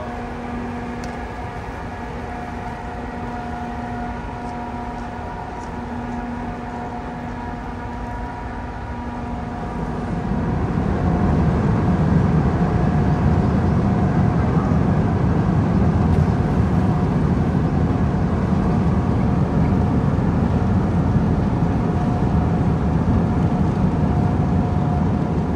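A large car ferry's engine machinery running with a steady hum of several constant tones. About ten seconds in, a deeper, louder rumble swells up and holds, as the ship works its way alongside the berth.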